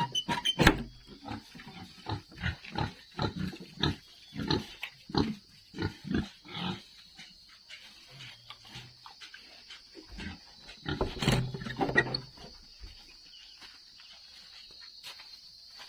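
Pigs grunting, a run of short grunts one or two a second, then a louder, busier flurry of calls about eleven seconds in before they quieten down.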